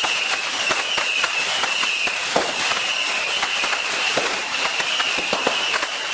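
Fireworks going off: a rapid, irregular scatter of crackling pops and small bangs, with a steady high-pitched whine underneath.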